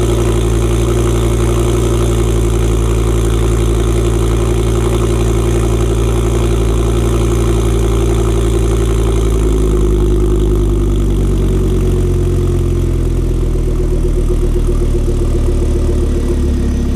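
Ford Focus RS Mk2's turbocharged 2.5-litre five-cylinder idling through a decatted Milltek stainless exhaust after a cold start. About ten seconds in, the idle speed drops and settles lower as the cold fast idle eases off.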